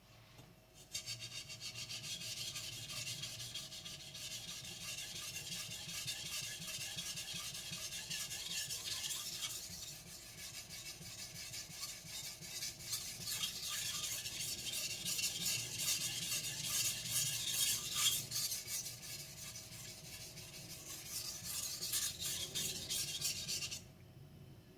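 Blue carbon steel gyuto blade being stroked back and forth on a wet Naniwa whetstone, a steady rapid rasping scrape. It starts about a second in and stops shortly before the end.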